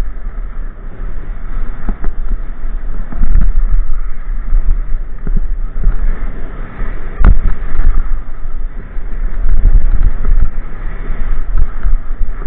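Wind buffeting a ski camera's microphone during a fast downhill run: a loud, low rush, with the skis scraping over the snow. A single sharp knock comes about seven seconds in.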